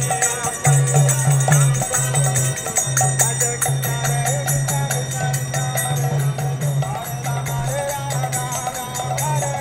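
Street kirtan: voices chanting a melodic line to a two-headed barrel hand drum (mridanga), with a constant high jingle keeping the beat.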